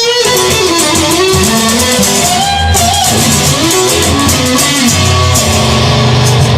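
Instrumental break of a rock song: an electric guitar lead plays notes that bend up and down in pitch over bass and drums.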